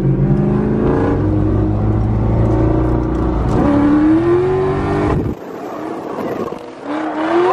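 A car engine running steadily, then revving up about three and a half seconds in; the deep rumble drops away suddenly a little past halfway, and the revs climb again near the end.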